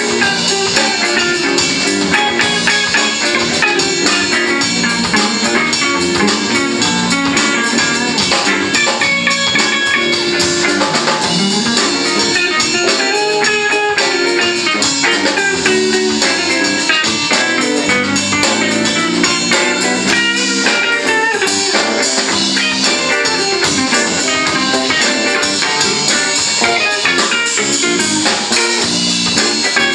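Live funk band playing: two electric guitars, an electric bass and a drum kit.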